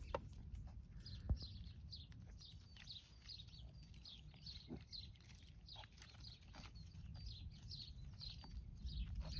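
Kunekune piglets snuffling and rooting in dry earth, with soft scattered clicks and one sharper knock about a second in. Behind them a bird chirps over and over, a short falling chirp every half second or so.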